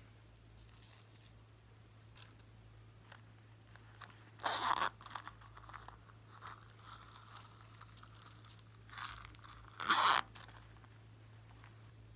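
Slime being worked by hand, with two loud crunchy crackles about four and a half and ten seconds in and softer crackling between them.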